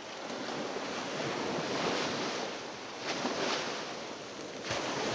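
Rushing noise of waves washing, swelling and easing a few times.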